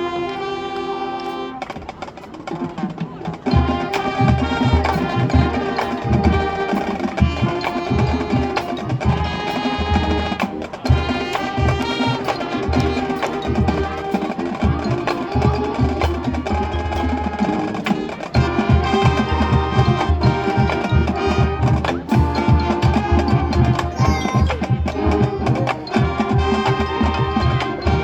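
High school marching band playing, with sustained wind and brass notes over drums. The drum line comes in about three and a half seconds in and keeps up a steady beat.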